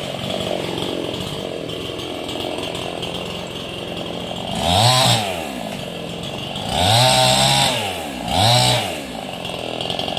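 Two-stroke chainsaw running steadily, then revved up hard three times, each rising in pitch and dropping back, the last two close together near the end.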